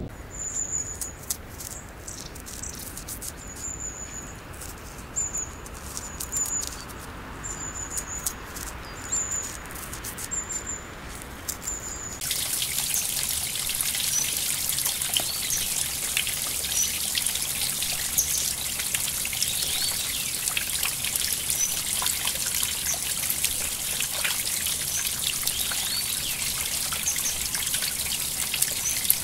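A small bird repeats a short high chirp about once a second over faint clicks. About twelve seconds in the sound cuts to a steady trickling stream, louder, with scattered bird chirps over it.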